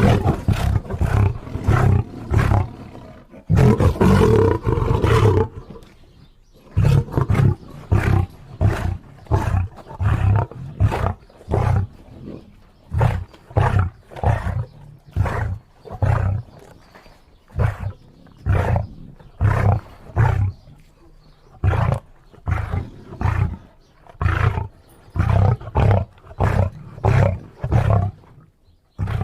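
A lion roaring: two long roars in the first few seconds, then a long run of short, deep grunts, about two a second, the grunting series that ends a lion's roaring bout.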